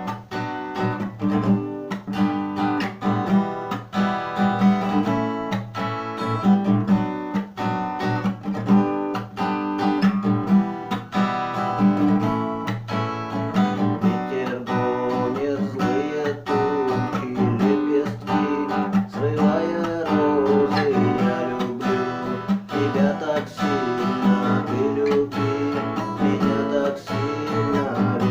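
Acoustic guitar strummed in a steady rhythm. From about halfway, a wavering melody line with vibrato rises above the strumming.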